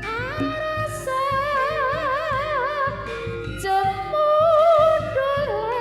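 Campursari music: a woman singing long notes with a wide vibrato over the band's accompaniment, with a regular drum beat underneath.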